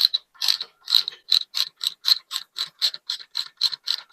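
Hand socket ratchet clicking steadily, about four clicks a second, as it runs in the handlebar riser bolts.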